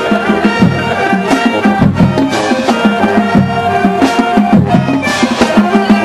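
Marching band playing: brass holding notes over steady drumline hits.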